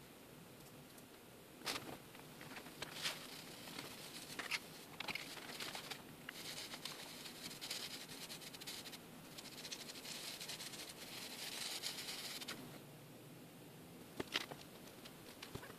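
Faint handling sounds: a few light clicks and taps, then several seconds of soft scratchy rubbing as a wet cotton-swab electrode is worked over the steel axe blade during electrochemical etching, then two more clicks near the end.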